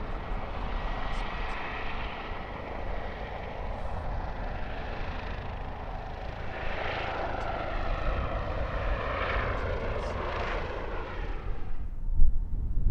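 An airliner's engines passing close, a loud, steady rush with sweeping tones through the middle that cuts off abruptly near the end.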